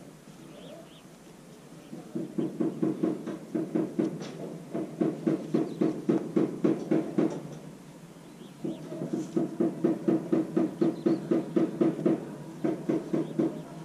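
A cloth being rubbed back and forth along the metal barrel of a hand grease gun, squeaking at about three strokes a second. There are two runs, with a short pause in the middle.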